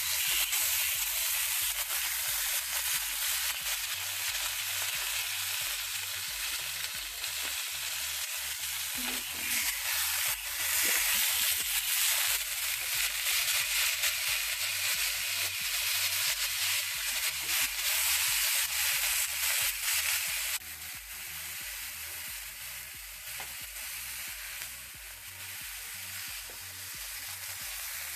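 Skin-on chicken thighs searing skin side down in hot oil in a sauté pan: a steady sizzle that drops suddenly to a quieter level about two-thirds of the way through.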